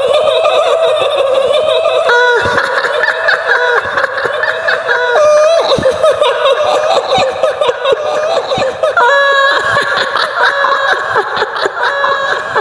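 High-pitched, warbling female cackling laugh of the kuntilanak ghost, a long trembling ghostly laugh that wavers up and down in pitch.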